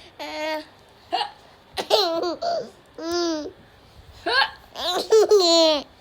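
Baby laughing and squealing in several short, high-pitched bursts with brief pauses between them.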